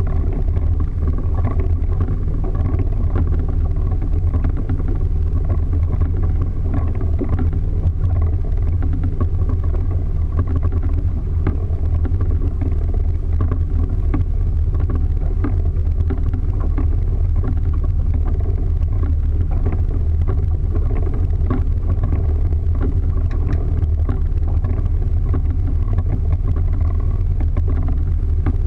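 Motorboat under way at speed across a light chop, its engine running with a steady, unchanging deep drone. The sound of water and hull rides over the engine.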